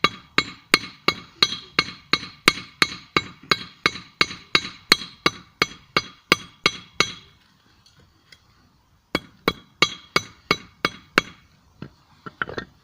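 Small hammer forging a screw blade on a 25 lb anvil: a steady run of blows, about three a second, each with a short metallic ring. The hammering stops for about two seconds, then comes a shorter run of blows and a few lighter taps near the end.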